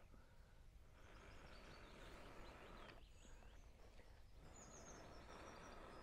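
Faint, steady blowing on a glowing ember in a dry King Alfred's cake fungus (Daldinia concentrica), coaxing the spark into a live ember. There are two long breaths with a short pause for air between them, and a bird chirps now and then.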